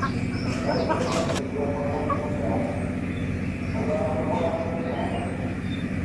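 A steady low mechanical hum, like a distant engine, runs throughout, with a few short faint bird chirps in the first second or so.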